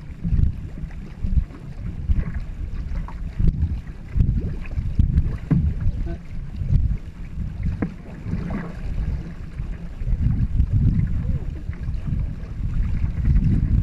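Water splashing from the paddle strokes of a two-man racing canoe under way, under steady wind noise on the microphone.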